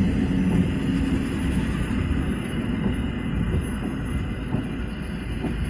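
Koleje Mazowieckie EN57AKM electric multiple unit running past along the platform: a steady low rumble of wheels and traction motors.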